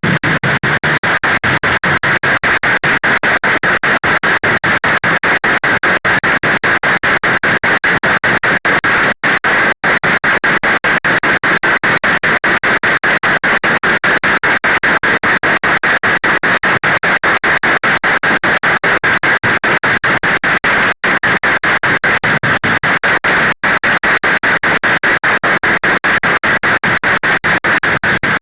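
Heavy rain falling, a loud dense hiss that does not let up.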